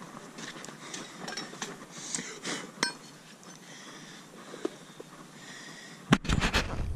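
Light metallic clinks as a steel horseshoe is handled and set against a mule's hoof, with one sharper ringing clink about three seconds in. Near the end, a farrier's driving hammer strikes the shoe several times in quick succession, starting to nail the shoe on.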